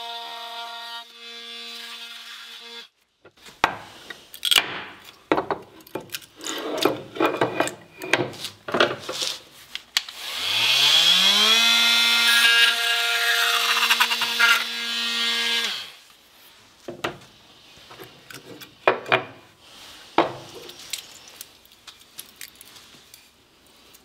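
Cordless oscillating multi-tool running as it cuts through the last thin tabs of purpleheart left from a CNC carve, stopping about three seconds in. Irregular clicks and scrapes follow. About ten seconds in the tool starts again with a rising whine, runs steadily for about five seconds and stops, and a few scattered clicks come after.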